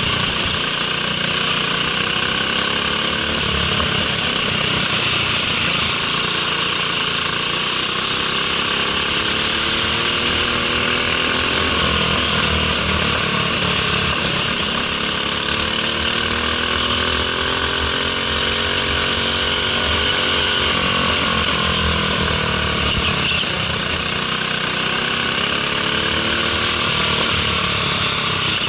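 Briggs & Stratton LO206 single-cylinder four-stroke kart engine running under race load, heard from onboard the kart, its revs rising and falling again and again through the corners.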